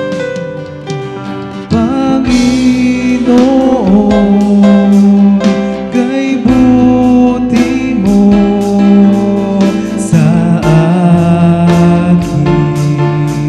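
Worship band music: guitar and keyboard with a singer's voice, growing fuller and louder about two seconds in.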